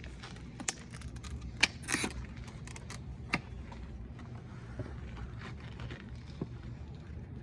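A few light clicks and a brief rattle of small parts being handled, the loudest cluster about two seconds in, over a low steady background hum.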